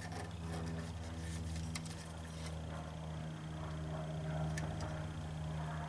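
Steady low hum in the workshop, with a few faint clicks and taps as wiring is handled inside a metal amplifier chassis.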